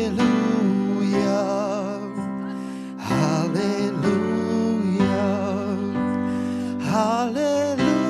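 Gospel worship song sung by a church praise team: a singer holds long, wavering notes over a steady band accompaniment, with new sung phrases starting about three seconds in and again near the end.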